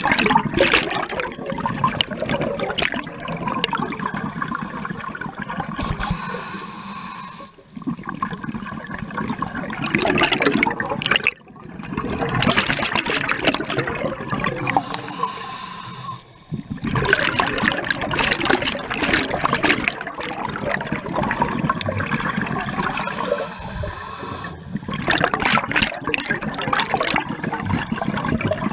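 Scuba regulator breathing underwater: exhaled bubbles rushing and gurgling past the diver's head in long bursts, broken by short quieter gaps at each inhalation.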